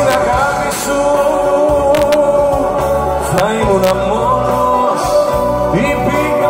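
Live concert music: a band plays while a male singer sings into a microphone over a long held note.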